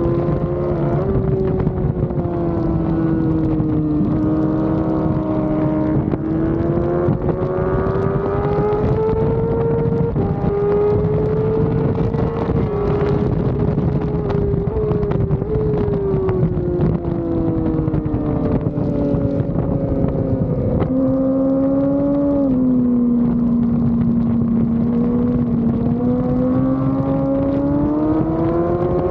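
Yamaha R6 inline-four engine at high revs, heard from on board, its pitch climbing and falling with throttle and gear changes. There is a sharp drop a little past two-thirds through, then a long steady climb near the end, with wind buffeting the microphone throughout.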